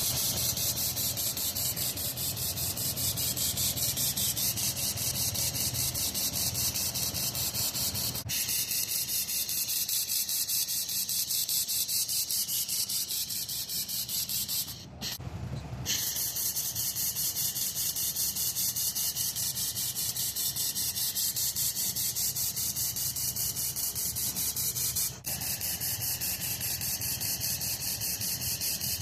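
Hand-held fiber laser welder welding steel tube: a steady, high hiss with a rapid, even pulsing, dropping out for about a second around the middle.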